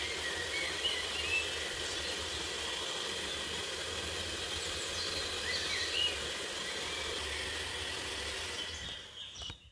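Russell Hobbs electric hand mixer running steadily, its twin beaters whisking a batter in a glass bowl; it cuts off near the end.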